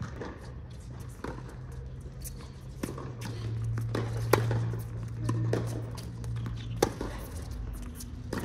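Tennis rally: sharp pops of racket strings striking the ball, roughly one every second or so, the loudest about four seconds in and again near seven seconds, with fainter strikes and bounces between. A low steady hum runs underneath from about three to seven seconds in.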